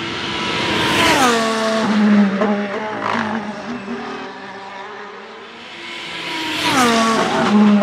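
Formula 1 car's 1.6-litre turbo-hybrid V6 screaming past at high revs, its pitch dropping sharply as it goes by, then running lower with a few quick pitch jumps. A second high-revving pass-by comes about six seconds later with the same sharp drop in pitch.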